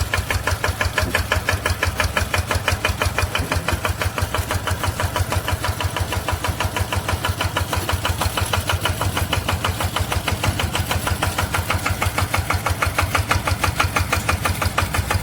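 Small Japanese engine of a homemade tracked rice-spraying machine running steadily, with an even, rapid chugging beat, while the machine drives along on its chain-driven tracks.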